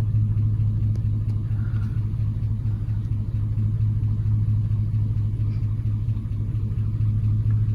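Vehicle engine idling steadily with a low, even hum, heard from inside the cab while the vehicle is stopped.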